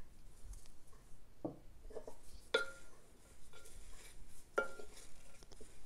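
Wooden spoon stirring chopped herbs and flour in a glazed ceramic bowl: a soft rustle, with a few knocks of the spoon against the bowl, two of them ringing briefly.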